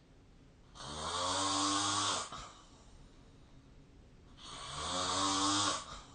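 A sleeping person snoring: two long snores about three and a half seconds apart, each lasting about a second and a half, with a low buzz and a hiss.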